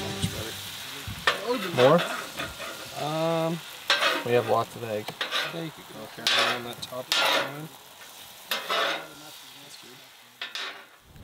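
Metal spatula scraping across a hot flat-top griddle while food sizzles: a series of scraping strokes, several giving a short squeal that bends in pitch, fading out near the end.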